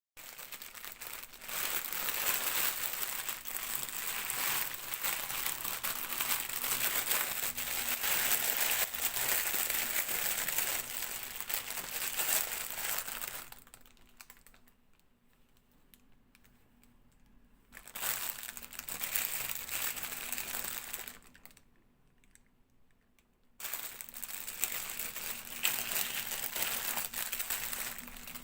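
Toy packaging being handled and unwrapped, crinkling in long dense stretches, with two short pauses partway through.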